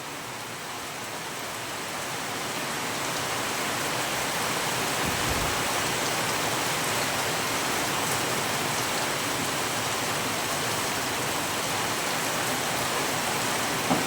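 Steady rain falling, its hiss growing louder over the first few seconds and then holding steady.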